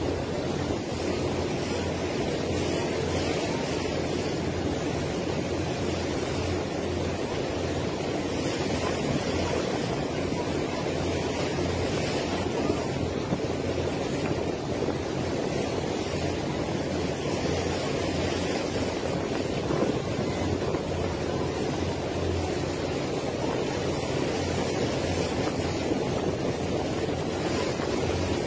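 Steady low drone of a boat's engine under a constant rush of wind and water.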